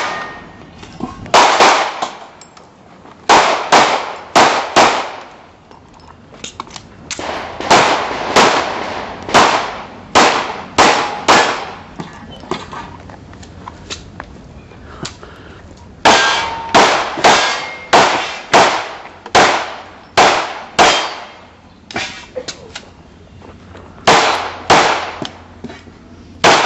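Springfield Armory XD 9mm pistol firing string after string of shots in quick pairs and short bursts, with gaps of a second or two between groups as the shooter moves to new positions during an IPSC stage.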